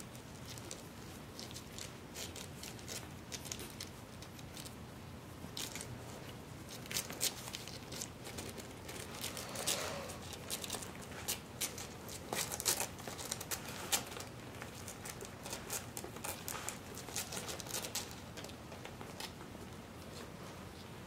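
Newborn puppies scrambling on soft bedding: rustling with scattered sharp crackles and clicks, thickest through the middle, the loudest a couple of single snaps about two-thirds of the way in.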